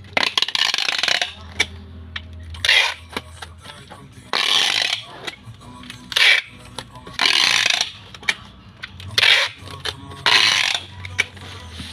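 Brown packing tape unrolling noisily from a handheld tape-gun dispenser in about seven separate pulls, each lasting up to about a second, with small clicks between them.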